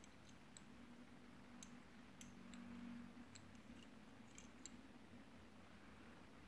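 Faint, scattered small metallic clicks from a homemade brass miniature revolver being handled and turned over in the hands, nine or so light clicks in the first few seconds.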